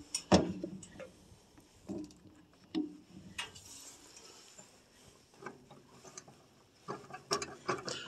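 Scattered light clicks and knocks of hands handling things around the engine bay, with the engine off. Near the end a quicker cluster of clicks comes as the carburetor throttle linkage is worked by hand; the throttle is a little sticky.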